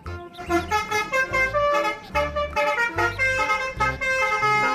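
Indonesian 'telolet' bus horn, a multi-tone musical horn, playing a quick melody of short, loud notes.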